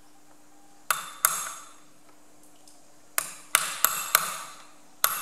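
A screwdriver strikes the metal side plate and housing of a diesel fuel injection pump, making sharp metallic clinks with a short ring. Two come about a second in, then four in quick succession a couple of seconds later, and one more near the end.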